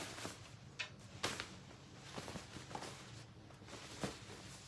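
Faint handling noise from a velvet frock coat being lifted and turned over: soft rustling of the fabric with a scattering of light clicks and taps.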